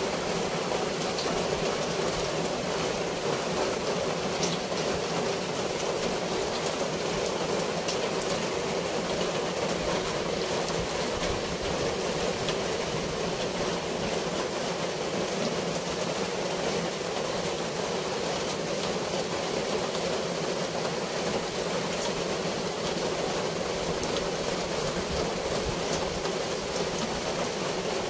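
Steady rushing of flowing water, unchanging throughout, with a few faint ticks scattered through it.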